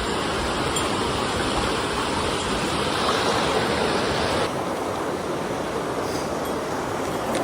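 Mountain stream water rushing steadily. About four and a half seconds in, the sound turns abruptly duller.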